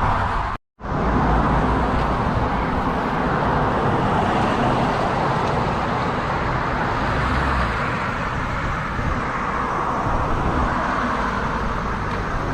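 Steady road and traffic noise, with a low rumble throughout; the sound drops out completely for a moment about half a second in.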